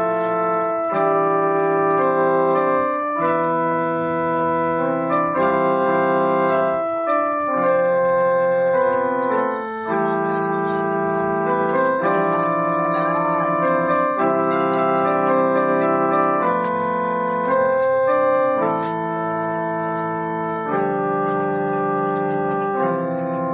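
Portable electronic keyboard playing a slow run of chords. The notes are held without fading, changing every second or two.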